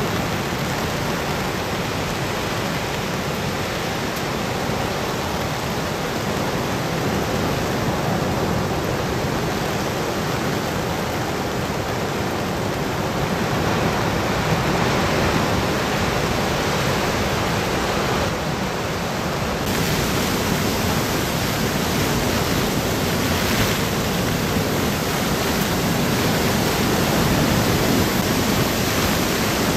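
Heavy typhoon surf breaking on a rocky coast, with storm wind: a continuous, even rushing noise that grows a little louder in the second half.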